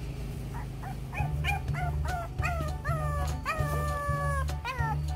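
French bulldog puppies howling in a run of short high calls, each dropping in pitch, with a couple of longer drawn-out calls a little past three seconds in.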